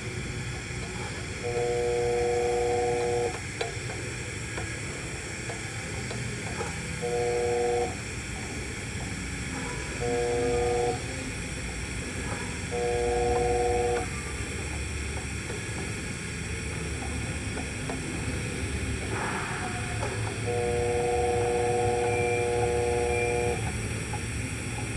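Welding positioner's electric drive humming in five short bursts of one to three seconds as the pipe is rolled, over a faint steady hiss from the TIG arc.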